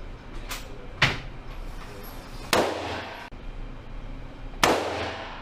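Three rifle shots, the second about a second and a half after the first and the third about two seconds later, each followed by a short echo.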